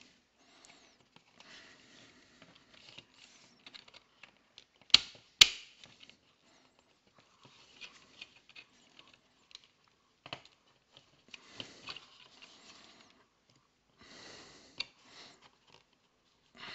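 3D-printed plastic puzzle box parts being forced together. Plastic scrapes and rubs, with scattered clicks, and two sharp snaps about five seconds in as the core's teeth are pushed past the flexing fingers of the half.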